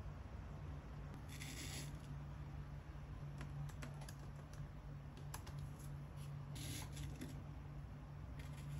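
Typing on a MacBook Pro laptop keyboard: a few light, scattered key clicks, mostly in the middle, with some short soft rustles, over a faint steady low hum.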